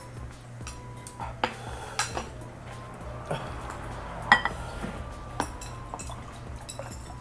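Metal forks clinking and scraping against plates and glass bowls while eating noodles: a scatter of sharp clinks, the loudest about four seconds in.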